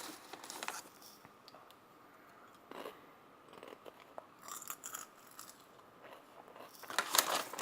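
Lay's potato chips crunching as they are chewed, in scattered crackly bites, with a louder cluster of crunching near the end.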